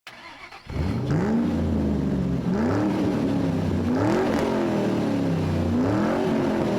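Engine of a 2009 Nissan Frontier pickup revved four times, each rev rising quickly and falling back slowly.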